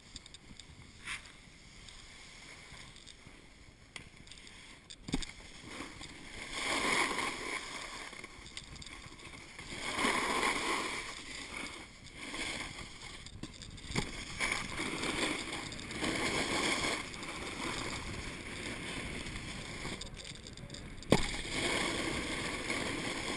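Snowboard sliding and carving on packed snow: a rough scraping hiss that swells and fades every few seconds with the turns, faint for the first few seconds. A few sharp knocks, the loudest near the end.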